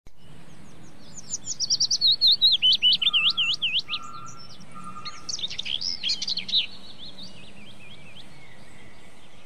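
Songbirds chirping: a quick run of sweeping, repeated high notes, then a busier jumble of notes about five seconds in, with three short, lower, steady notes in between, over a steady low hiss.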